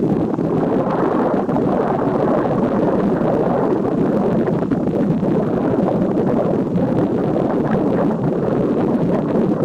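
Wind buffeting the camera's microphone: a loud, steady rushing noise with no distinct events.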